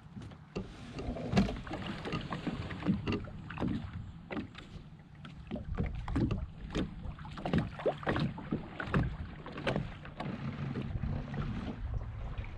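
Water lapping and slapping against a small sailboat's hull, with irregular knocks and creaks from the boat as it is eased off the shore, over a low rumble of wind on the microphone.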